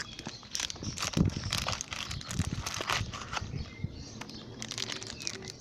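Blind-box toy packaging being handled and opened by hand, crinkling, with a quick run of small clicks and crackles.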